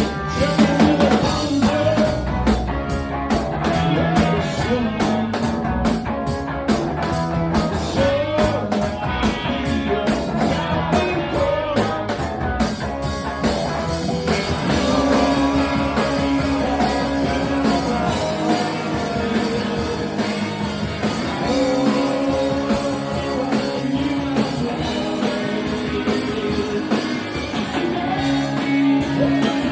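Rock band playing live, with singing, guitar and drums. The drum beat is steady and prominent for the first half and thins out about halfway through, where the sustained bass and guitar notes take over.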